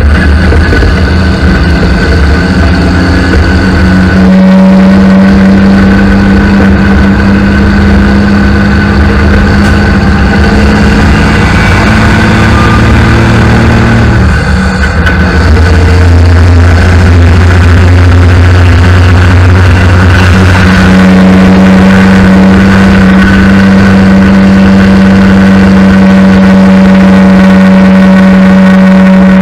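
Diesel engine of a semi truck pulling a loaded flatbed, running steadily on the highway with road and wind noise. The engine note steps to a new pitch a few times, with a brief drop in level about halfway through.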